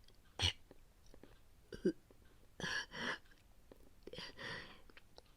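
A woman retching and gagging, voice-acted: a few short heaves, then two longer, harsher ones around the middle, followed by a breathy exhale.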